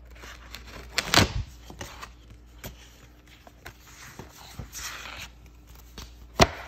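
Handling noises as a sheet of paper is set down on a table: a short paper rustle and slide, with knocks, the loudest about a second in and another sharp one near the end.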